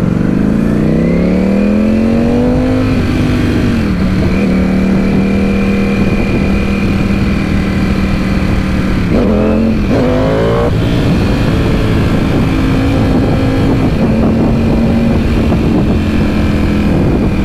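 Sportbike engine accelerating hard in first gear, upshifting to second about three seconds in and to third around ten seconds in, then running steadily at speed, with wind noise underneath.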